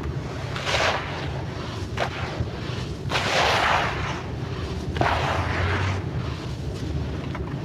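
Crunchy, grainy sand-clay chunks being crushed and crumbling, in several short crunches with a longer, louder one a few seconds in.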